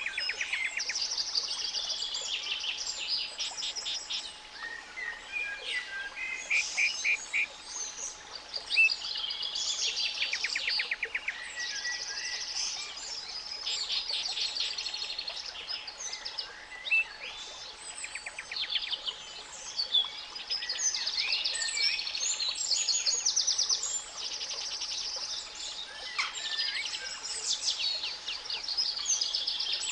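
Songbirds chirping and singing rapid trills, several voices overlapping, over a faint, steady 852 Hz pure tone.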